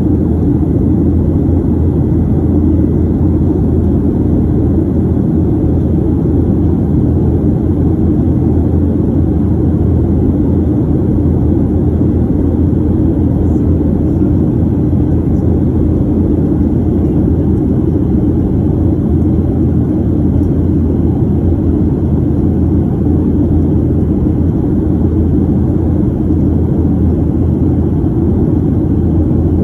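Steady low rumble of jet engines and rushing air heard inside the cabin of a Boeing 737 airliner climbing after takeoff.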